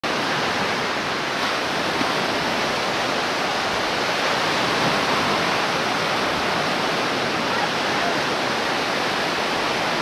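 Ocean surf breaking along the shore, a steady, even rushing.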